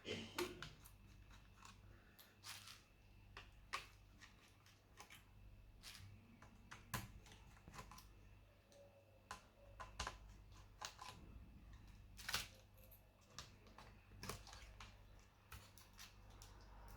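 Faint, irregular small clicks and scrapes of a laptop's plastic case and parts being handled during disassembly, about a dozen sharp ticks scattered through the stretch.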